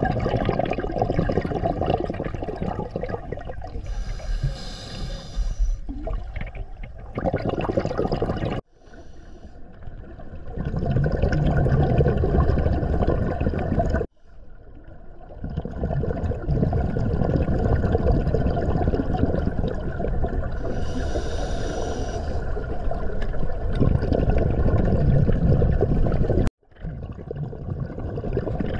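Scuba diver breathing underwater through a regulator: long stretches of bubbling exhaust with two brief hissing inhales, about four seconds in and again past twenty seconds. The sound cuts out abruptly three times.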